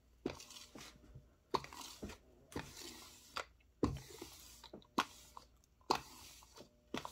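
Sticky lint roller rolled over a cotton t-shirt in repeated quick strokes, about one a second, each stroke a sharp rasp of the adhesive tape pulling off the fabric.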